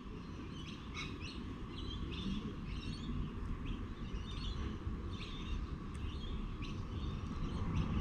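Small birds chirping in short, scattered calls over a low steady rumble of background noise.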